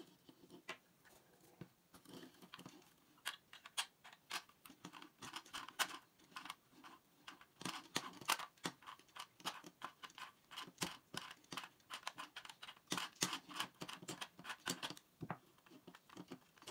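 Irregular light clicks and taps of small plastic and metal parts being handled as a twin-bell alarm clock is taken apart, with needle-nose pliers working inside its case. The clicking stops about a second before the end.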